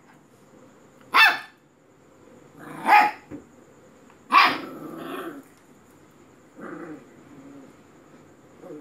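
Dalmatian puppy barking: three sharp barks a second and a half apart, the third followed by about a second of growling, then a fainter bark near the end.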